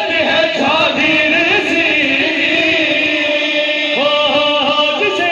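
A group of men singing an Urdu devotional chorus together into microphones, amplified over a PA, with long held notes; a new phrase begins about four seconds in.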